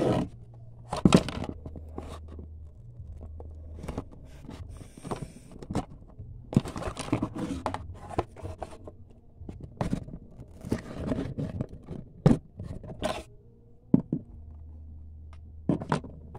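Cardboard packaging being handled close to the phone: irregular scrapes and knocks, with a few louder knocks.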